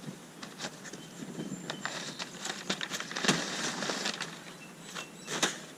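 Packing material and cardboard rustling and crinkling as a shipping box is dug through by hand, with scattered crackles and two louder knocks about three and five and a half seconds in.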